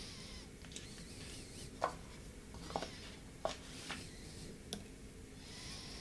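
A few faint, scattered clicks and taps, about five over three seconds, from small tools or parts being handled on a repair bench. Faint high chirping sits behind them.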